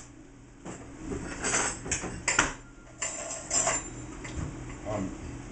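Kitchen clatter: a string of short clinks and knocks, like utensils and dishes being handled, most of them between about one and four seconds in.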